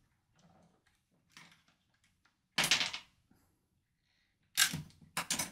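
Plastic building bricks of a Bluebrixx set clicking and clattering as a brick-built section is handled: a short clatter about two and a half seconds in, then several sharp clicks near the end as a part of the model breaks loose.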